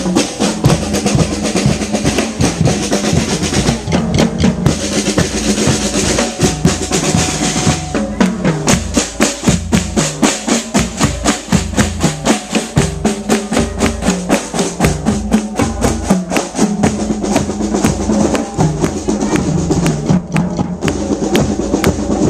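Marching band playing on the march: sustained wind-instrument tones over a steady snare and bass drum beat.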